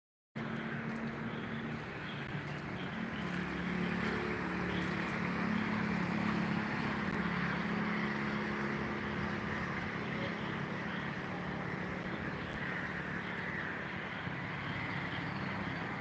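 Motor vehicle engine droning, swelling about six seconds in and then easing off, over a steady background hiss.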